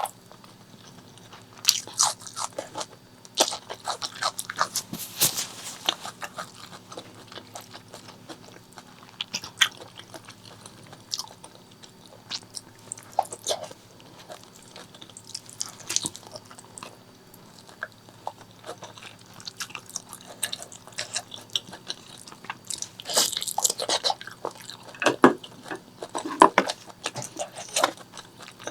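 Close-miked eating: chewing and biting of pork leg curry and rice, with wet, sticky mouth clicks and some crunches coming in irregular bursts, busiest in the first few seconds and again near the end.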